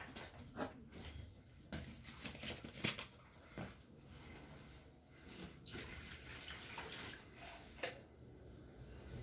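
Plastic being handled: irregular rustling, clicks and light knocks, with one sharper knock near the end.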